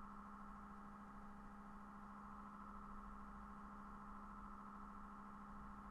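Near silence: a faint, steady hum made of a few unchanging tones, with nothing else happening.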